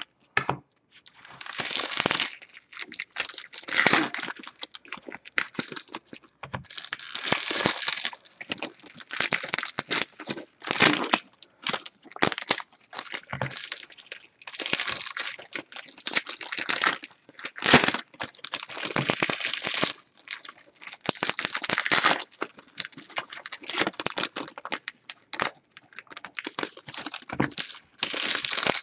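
Baseball card pack wrappers being torn open and crinkled by hand, in irregular bursts about a second long, with the cards shuffled and stacked between them.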